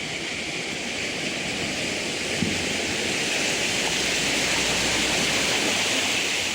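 Floodwater of the Godavari River in spate rushing steadily, growing slightly louder.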